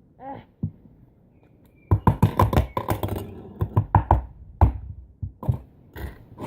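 Slime being squeezed and poked with the fingers, a quick run of sticky clicks and pops for about four seconds.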